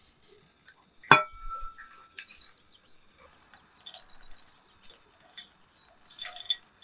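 A sharp clink with a short ring about a second in. Then wet whole almonds rattle and patter as they tumble out of a plastic strainer basket into a glass mixing bowl, in small clusters around four and six seconds in.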